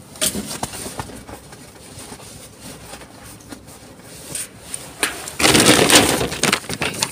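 Plastic bags and packaging rustling and crinkling as rubbish is rummaged through by hand: a few light knocks and faint rustles at first, then loud crinkling for the last couple of seconds.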